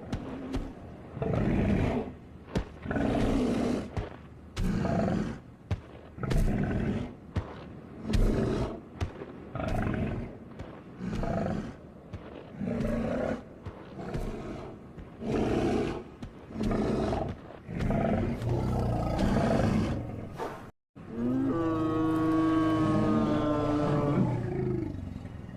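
Woolly mammoth creature sound effects: a run of short, low animal calls, about one every second or so, then after a brief cut one long pitched call held for about four seconds and slowly falling in pitch.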